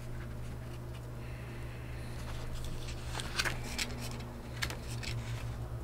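Faint rustles and light taps of a paper booklet being handled, a few of them about three and a half and four and a half seconds in, over a steady low hum.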